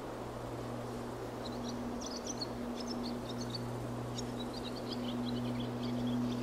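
Airplane's steady drone with a rush of wind, holding two low even tones. A small bird twitters over it in quick high chirps from about a second and a half in to near the end.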